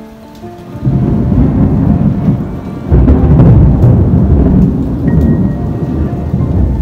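Distant thunder rumbling, starting about a second in and swelling again about three seconds in, with rain in the background.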